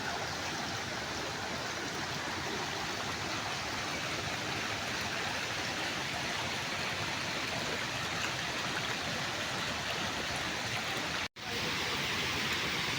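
Waterfall rushing: a steady, even roar of falling water. It drops out for an instant about eleven seconds in.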